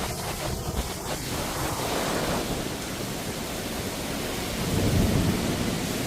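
Strong storm wind blowing hard and buffeting the microphone, with a louder low gust about five seconds in.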